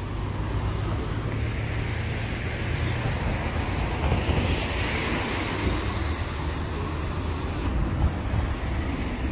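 Street traffic noise on a wet road, with a low rumble of wind on the phone's microphone. A passing vehicle's hiss swells and fades about halfway through.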